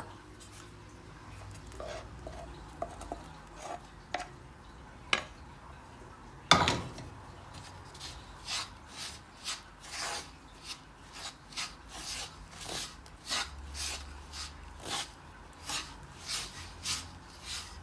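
Wooden spatula scraping and stirring through dry roasted flour in a black pan, working poured jaggery syrup into the powder. The strokes are sparse at first, then run at about two a second, with one louder knock about six and a half seconds in.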